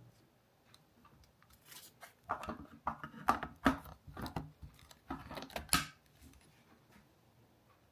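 Handling noise: a run of clicks, rattles and scraping from small hard objects for about four seconds, starting a couple of seconds in.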